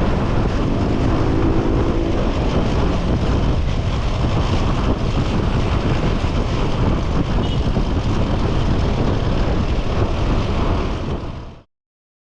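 Honda Supra X motorcycle with a 185cc bored-up engine running, a dense steady rumble that cuts off abruptly near the end.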